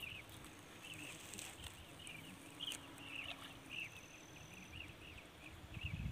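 Faint chirping of a small animal: short calls repeated two or three times a second over low outdoor noise.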